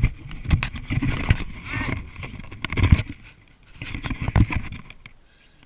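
GoPro action camera being handled and moved about: a run of knocks, clicks and rubbing on its housing. The noise dies away about five seconds in.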